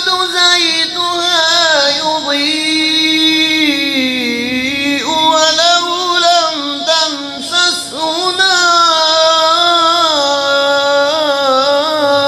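A man reciting the Quran in the drawn-out, melodic tajweed style, holding long ornamented notes in a high register that bend up and down, with a few short breaks.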